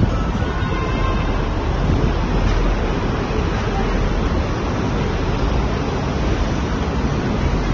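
Steady rushing wind noise buffeting a phone microphone, with the low rumble of a moving vehicle.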